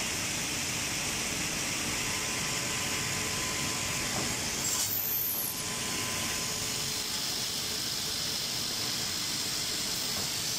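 Automatic wood drilling and cutting machine running in auto mode: a steady mechanical hiss with a faint high tone, and a brief change in the hiss about five seconds in.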